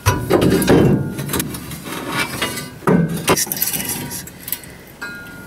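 New steel tailpipe being worked up over the rear axle into place, clanking and scraping against the frame and axle. There is a run of knocks at the start and another cluster about three seconds in.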